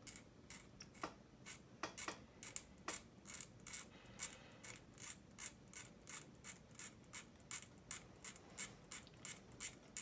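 Hobby knife blade scraping and carving texture into a small plastic model seat cushion: a faint run of quick, short scraping strokes, about three a second.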